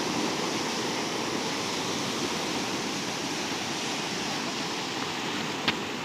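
Sea surf washing on the shore as a steady rushing hiss, with one sharp click near the end.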